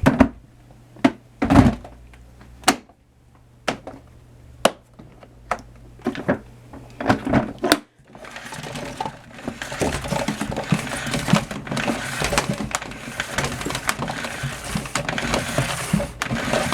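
Separate clicks and knocks of hard plastic being handled on a switched-off Numatic Henry vacuum cleaner. From about eight seconds in, a continuous crackling rustle with scattered small clicks.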